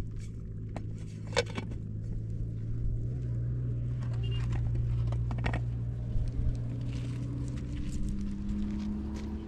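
A metal lid is set on a cooking pot with a clink, followed by a few light knocks of handling. All of this is over a steady low hum, and a fainter tone slowly rises near the end.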